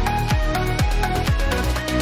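Background music: an electronic beat with a steady pulse and falling bass notes about twice a second, with melody lines over it and no vocals.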